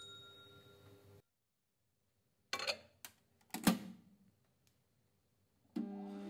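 Sharp countertop microwave oven: a few sharp knocks and clunks of the door and bowl, the loudest about three and a half seconds in, then the oven switching on at full power near the end and running with a steady hum.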